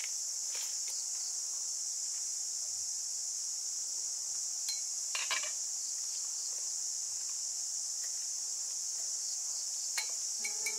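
Steady high-pitched drone of insects, with a few light clinks of chopsticks and a lid against a cooking pot about five seconds in.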